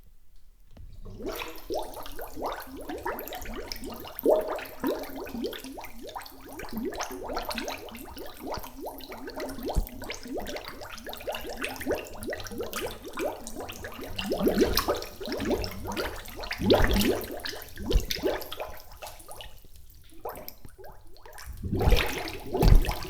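Homemade water sound effect: continuous churning, bubbling and splashing water, with louder surges about 15, 17 and 22 seconds in.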